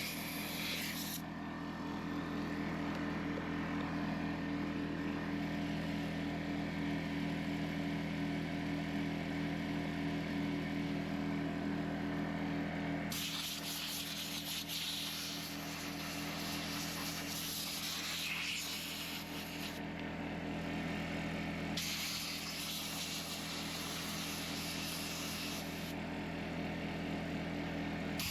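Air compressor running with a steady hum while a compressed-air blow gun cleans out the chainsaw, its hiss starting and stopping several times.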